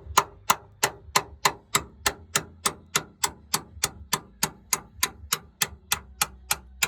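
Hammer striking a steel insert removal tool in a steady run of sharp metallic taps, about three a second, driving the old pressed-in steel insert out of a Jeep Wrangler JK door hinge; it is going in hard.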